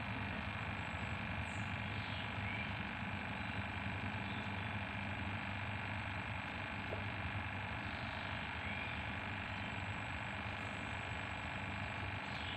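Steady outdoor ambience of a mangrove river: an even hiss with a low hum and a thin high tone, broken a few times by a short rising bird chirp.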